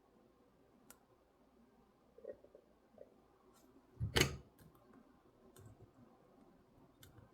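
Faint clicks of a lock pick and tension wrench working in a Master Lock 410 LOTO padlock, a few scattered ticks, with one louder clatter about four seconds in.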